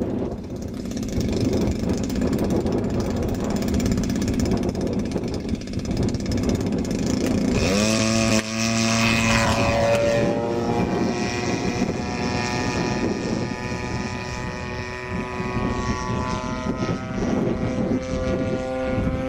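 DL-50 single-cylinder two-stroke gas engine turning the propeller of a quarter-scale Extra 300S RC airplane during takeoff and flight. At first it is half buried in wind noise on the microphone. About eight seconds in, its note rises sharply and then stays clear, sliding up and down in pitch as the plane flies by.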